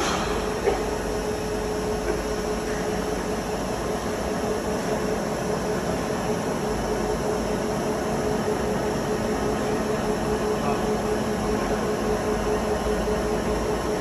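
Monarch VLN-14 CNC vertical turning lathe running: a steady mechanical hum with a steady mid-pitched whine over it, and a single sharp click near the start.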